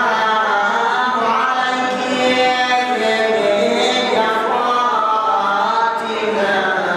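A man and a group of boys chanting a devotional recitation together without instruments, in long, drawn-out held notes.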